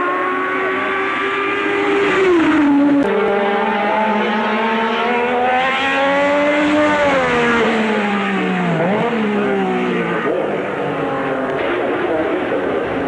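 A 1984 Formula 1 car's engine running at high revs. The pitch climbs and falls several times as the car accelerates and slows, with an abrupt jump about three seconds in and a sharp dip and recovery about nine seconds in.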